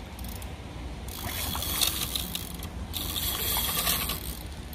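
Fishing reel running with a fast mechanical ratcheting while a hooked fish fights on the line. It starts about a second in, breaks off briefly near the middle, then carries on and eases near the end.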